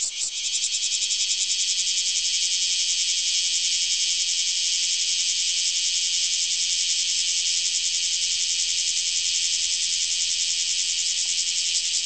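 A cicada singing close by: a fast pulsing call that, just after the start, merges into a continuous shrill buzz, held loud and steady.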